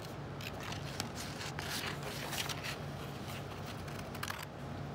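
Scissors cutting red construction paper: faint, irregular snips with the rustle of the sheet being turned.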